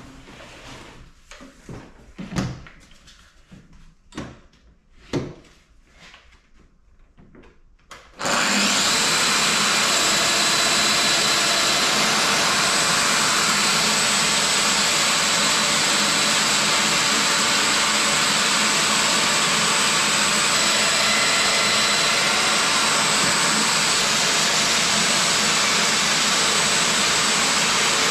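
A few light knocks as the tool is handled on the bench, then about eight seconds in a Festool Domino joiner and the dust extractor on its hose start up suddenly and run with a steady loud whir and a faint high whine.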